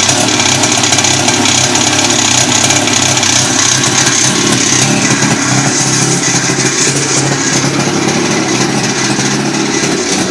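RMZ-500 two-stroke snowmobile engine running steadily with an extraneous noise in it, its note shifting slightly about halfway through.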